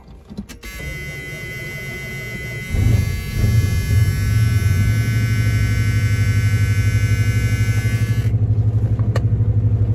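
1979 Chrysler Cordoba's V8 cranked on a newly replaced ignition switch, catching about three seconds in and settling into a steady, loud run with an even, rapid pulse. A high whine runs over the cranking and the first seconds of running, then stops abruptly near the end.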